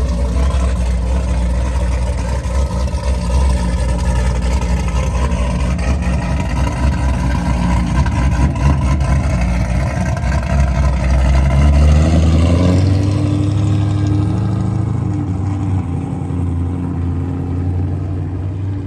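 Loud modified V8 car engine running at low speed, then accelerating about twelve seconds in, its pitch rising and then levelling off into a steady higher drone.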